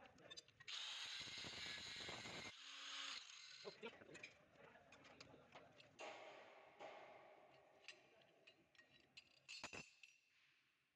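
Faint sheet-metal workshop sounds: a burst of steady hiss lasting about two seconds, then shorter fading noises and scattered sharp clicks and clinks as perforated cable-tray pieces are worked.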